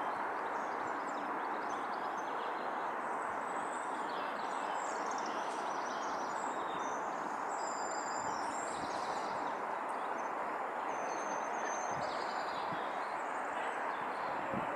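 Steady outdoor background noise with no change in level, and small birds chirping now and then.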